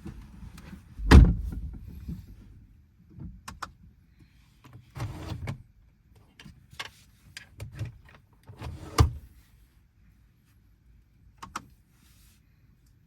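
A series of separate knocks and clicks, the loudest a heavy thump about a second in, with another strong knock about nine seconds in.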